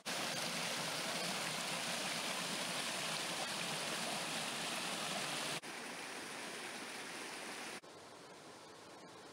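River water rushing over mossy granite rocks in the Mandeo river, a steady loud rushing noise. It drops abruptly to a fainter rush about five and a half seconds in, and again near eight seconds.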